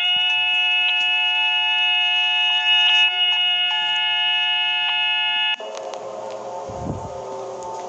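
Synthesized emergency-alert alarm tone: a loud chord of several steady electronic tones that cuts off abruptly about five and a half seconds in. A quieter, lower electronic drone of several tones follows.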